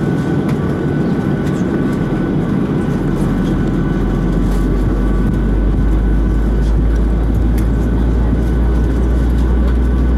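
Inside the cabin of a Boeing 737-800 taxiing, from a window seat beside the wing: the steady run of its CFM56-7B turbofan engines with a faint whine over a broad rumble. About three seconds in, a deep low rumble sets in and the noise grows a little louder.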